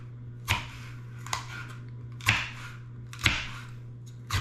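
A knife chopping boiled pork on a cutting board: five separate sharp chops, about one a second.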